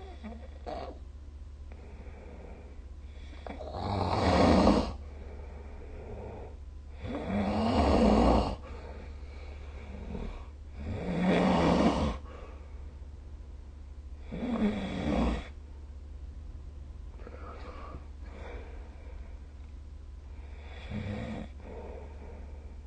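A sleeping person snoring: four loud snores at about three-and-a-half-second intervals, then a few fainter ones, over a steady low hum.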